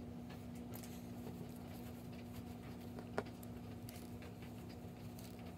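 Faint handling noise of polyester stuffing being pushed into a plush toy: soft rustling and small taps, with one sharper click about three seconds in. A steady low hum runs underneath.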